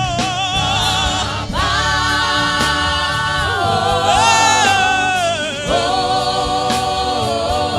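Group of worship singers singing a Yoruba gospel prayer chorus, holding long drawn-out notes with vibrato.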